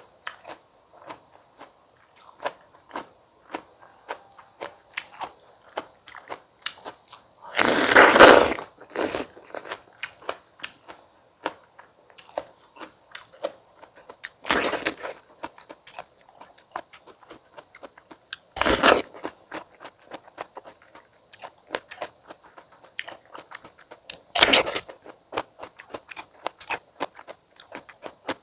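Close-miked chewing of crisp fresh fruit: a steady run of small crunching clicks, with four louder bites spread through, the loudest about eight seconds in.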